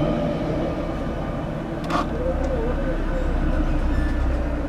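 Steady low rumble of vehicle traffic, with a short sharp click about two seconds in.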